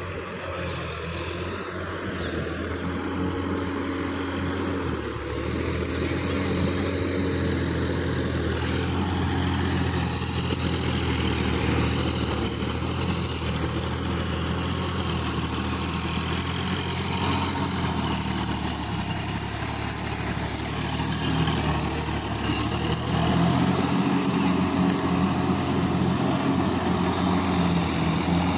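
Sonalika DI-50 RX tractor's diesel engine running steadily as the tractor works through deep paddy-field mud, getting louder over the last few seconds.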